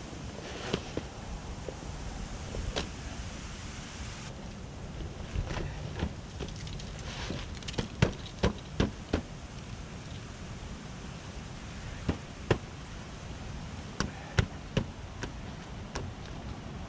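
Outdoor gear being handled and packed up: a series of sharp knocks and clacks, several in quick pairs, over a steady background rumble.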